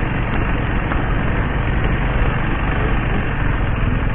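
Motorcycle engine running while riding along, a steady drone mixed with road noise.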